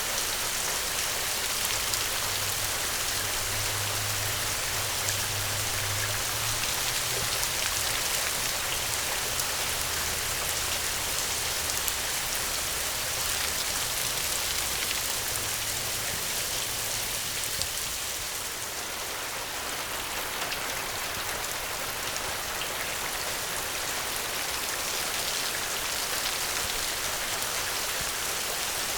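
Steady rain falling, a dense even patter of drops that eases slightly about two-thirds of the way through.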